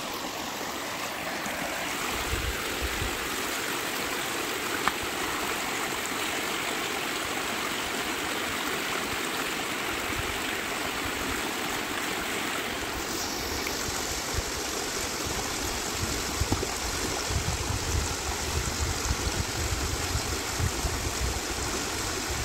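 Shallow stream rushing over rocks and through a bamboo fish trap, a steady watery hiss that turns brighter about halfway through.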